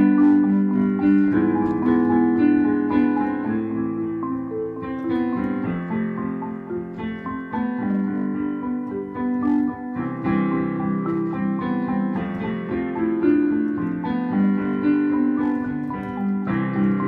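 Solo piano playing a gentle melody over chords, with notes following one another steadily.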